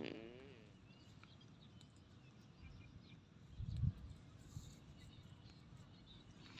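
Cattle on the farm: the low, falling tail of a cow's call fades out at the start. About three and a half seconds in comes a short low rumble, with faint bird chirps in the background.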